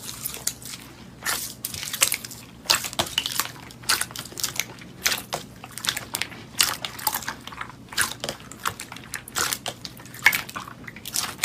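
Slime being squeezed and worked, giving an irregular run of wet crackles and pops, several a second.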